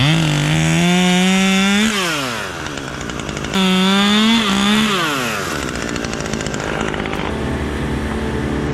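Chainsaw engine opened to full throttle twice, each burst lasting one to two seconds before it falls back, then running more quietly.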